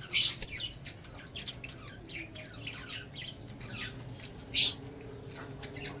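Budgerigars chirping rapidly in short high calls, with three louder squawks: one just after the start and two close together past the middle.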